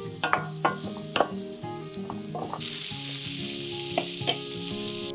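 Sliced sweet potatoes and onions sizzling in a nonstick frying pan as a wooden spatula stirs them, knocking against the pan several times in the first couple of seconds. About two and a half seconds in the stirring stops and the sizzling gets louder and steadier.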